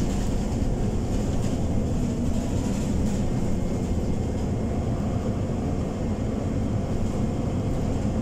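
Scania OmniCity 12-metre diesel city bus under way, heard from inside the passenger cabin: a steady engine drone with road rumble, the engine cooling fan running.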